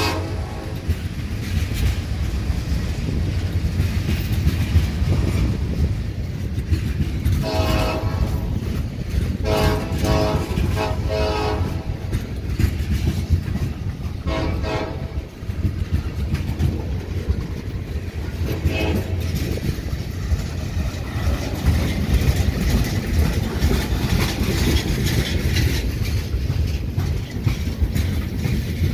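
Freight train of tank cars rolling past close by, with a steady low rumble and clatter of wheels on rail. The locomotive horn, well ahead at the front of the train, sounds a series of short and longer blasts between about seven and nineteen seconds in.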